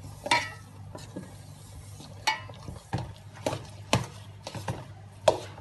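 Metal spoon stirring semolina into a metal pot of boiling water and milk for upma, with repeated irregular knocks and scrapes against the pot, about one or two a second. A low steady hum runs underneath.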